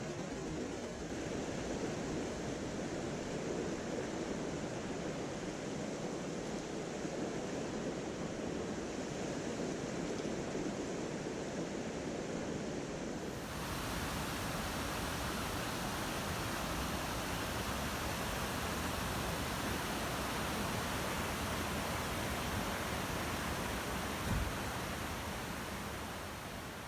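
Mountain stream water rushing steadily. About halfway through, the rush abruptly turns brighter and hissier, and a single soft thump comes near the end.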